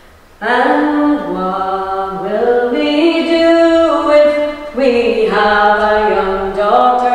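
Several women's voices singing a cappella in harmony, held notes shifting in steps. The singing starts about half a second in, after a short pause.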